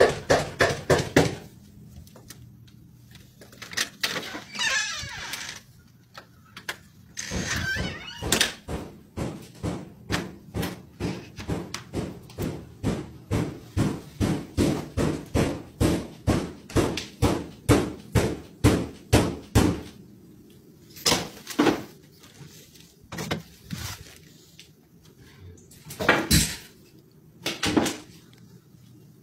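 Someone pounding on a door in fast, heavy, even knocks about two a second, in long runs with short breaks, then a few separate heavy bangs near the end.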